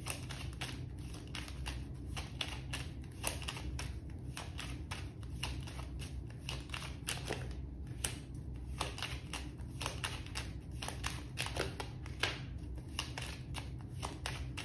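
A deck of paper fortune-telling cards being shuffled by hand, a steady run of quick soft card clicks and flicks over a faint low hum.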